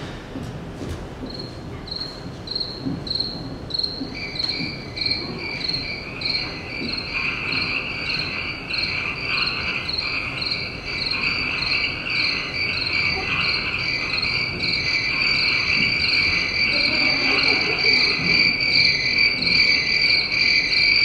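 Crickets chirping, a stage sound effect played into the theatre: a high chirp repeating about twice a second, joined a few seconds in by a steady lower trill, growing louder.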